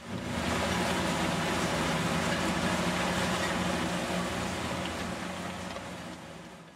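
Road-repair machinery running on a concrete highway work site: a steady engine hum under a broad, noisy rush. It fades out over the last second or two.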